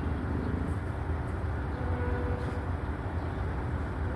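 A steady low rumble with a faint hum above it, unbroken throughout.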